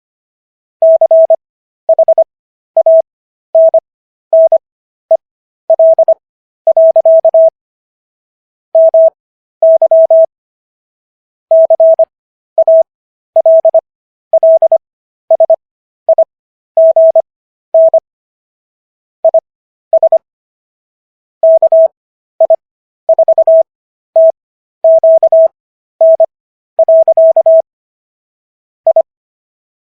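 Morse code practice tone: a single steady mid-pitched beep keyed on and off in short dots and longer dashes. Characters are sent at 25 words per minute with stretched Farnsworth gaps between them, for an overall speed of 15 words per minute.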